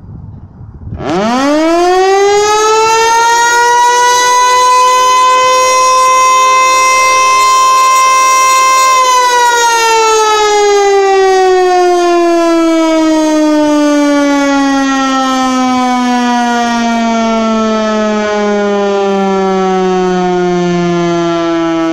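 Federal Signal Eclipse 8 electromechanical siren sounding its noon blast: about a second in it winds up quickly to a loud steady wail, holds it for several seconds, then the pitch slowly falls as the rotor coasts down.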